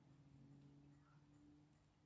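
Near silence: room tone with a faint, steady low hum.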